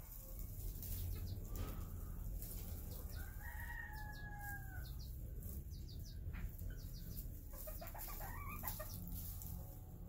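Black Modern Game bantam chickens: a rooster crows with one long, level call about three seconds in and a second, wavering call near eight seconds, while the flock clucks. A steady low hum sits underneath.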